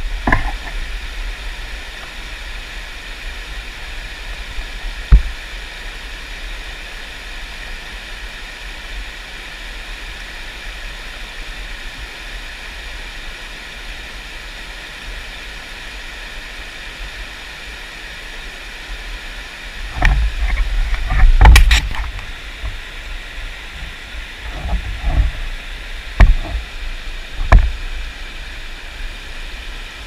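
Mountain stream rushing steadily over rocks. A low thump comes about five seconds in, a loud low rumble about twenty seconds in, and a few sharp knocks near the end.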